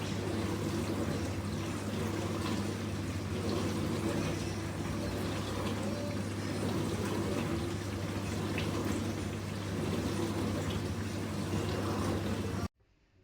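Candy CDPH 2L1049B-80 slimline dishwasher running a wash: water spraying and splashing inside over a steady pump hum. It cuts off suddenly near the end.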